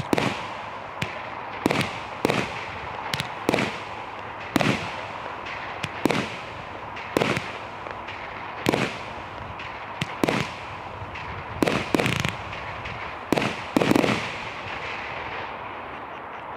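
Sovereign Fireworks Gold Cascade 49-shot barrage firing: sharp bangs of shots about once a second, some in quick pairs, over a steady hiss.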